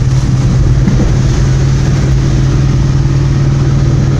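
A car driving in heavy rain: a steady low engine drone under a constant hiss of rain and tyre noise on the wet road.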